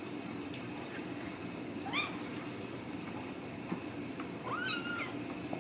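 Ragdoll kitten mewing twice: a short rising mew about two seconds in and a longer mew near the end.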